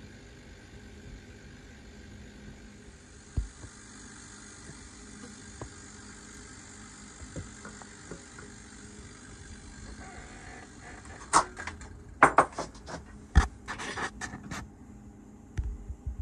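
Ball valves on a homemade vacuum chamber's lid being handled: a run of sharp metallic clicks and knocks a little past the middle. Under them are a steady low hum and a faint high hiss. A low throbbing starts near the end.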